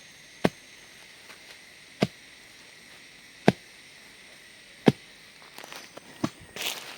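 Four sharp chopping strikes about a second and a half apart, then lighter knocks and rustling near the end.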